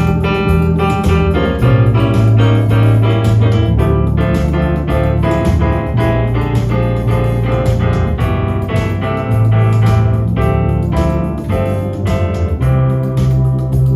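Electronic keyboard instrument played live: held bass notes changing every second or two under chords and a melody, over a steady drum-machine beat.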